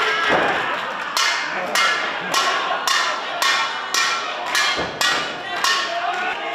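Wrestling ring bell struck repeatedly with a hammer, about two clangs a second, each ringing briefly, starting about a second in.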